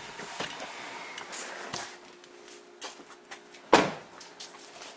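Pickup truck door shut with a single loud thump about three-quarters of the way through, amid rustling and handling noise as the driver climbs out of the cab.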